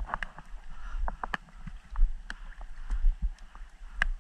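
Water sloshing and splashing around people wading waist-deep, with irregular short splashes several times a second over a low rumble.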